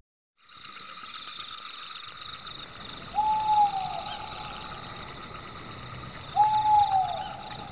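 Night ambience: a constant chorus of insects chirping in rapid pulsed trills, with a night bird's call twice, each a single note that holds and then falls away.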